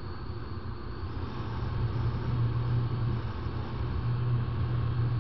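Honda XLR 125's single-cylinder four-stroke engine running hard at road speed, around 85 km/h, its note steady and growing a little louder about a second in. Wind and road noise rush past underneath.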